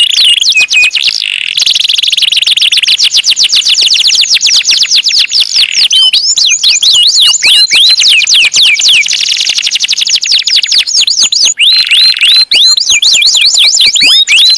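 Domestic canary singing a long, fast song: rapid runs of repeated falling chirps, broken by fast buzzing rolls and a few briefly held whistled notes.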